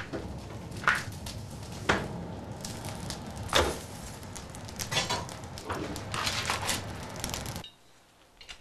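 Pine charcoal fire in a forge crackling and popping: sharp pops about once a second over a steady low noise from the flames. The sound drops away shortly before the end.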